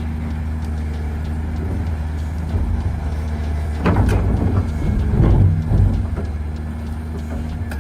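Heavy diesel machinery running with a steady low engine drone. Partway through comes a louder stretch of irregular clattering and knocks lasting about two seconds.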